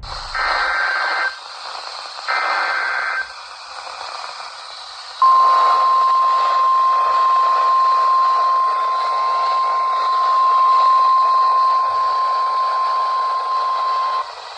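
A NOAA Weather Radio severe thunderstorm warning alert heard through a weather radio receiver. First come two screeching SAME digital header bursts, about a second each and a second apart. Then the steady 1050 Hz warning alarm tone sounds for about nine seconds and cuts off, all over a hiss of radio static.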